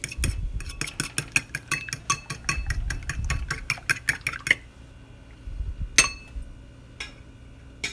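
Fork beating an egg in a bowl, a fast run of clinks at about eight strokes a second that stops about four and a half seconds in, followed by two single clinks.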